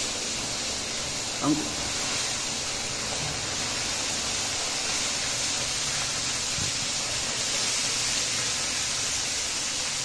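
Steady hiss and sizzle of jaggery water being poured into a hot iron wok of flour browned in oil, the syrup boiling up into steam as it hits the pan.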